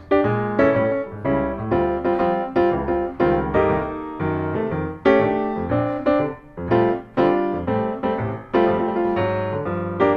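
Background music: an instrumental piece led by piano, notes struck one after another at a lively pace.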